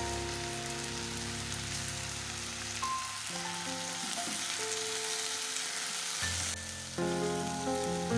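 Chicken thighs sizzling as they fry in a pan: a steady crackling hiss, strongest in the middle. Soft background music with held notes plays over it.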